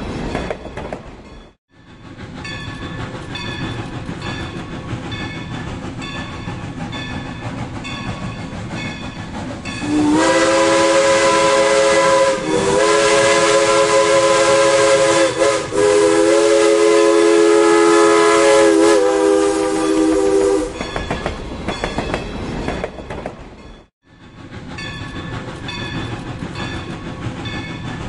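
Steam locomotive rolling past with a steady rhythmic clatter of wheels on rail joints. Near the middle it sounds a long, loud chime whistle of several tones together, which dips briefly twice before stopping. The sound cuts out for an instant twice.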